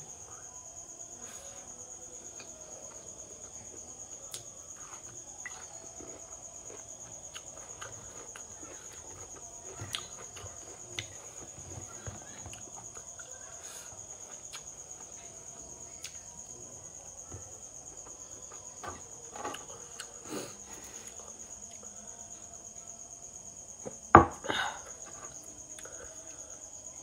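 Crickets chirring in a steady, high, even tone, with faint scattered clicks of fingers eating off a steel plate. There is one loud knock near the end.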